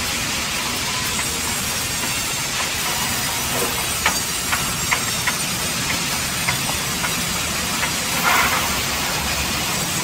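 Large vertical band sawmill running and cutting through a log, a steady loud rushing noise, with a few sharp knocks between about four and eight seconds in.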